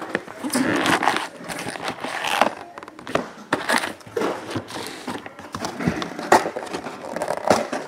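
Wrapped baseball card packs being lifted out of a cardboard hobby box and stacked, with irregular rustling, crinkling and small knocks of the cardboard box being handled.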